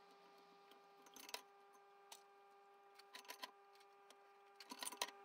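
Faint metal clicks and clinks in a few small clusters as valve parts are handled with a valve spring compressor on a BSA B31 cylinder head, over a faint steady hum.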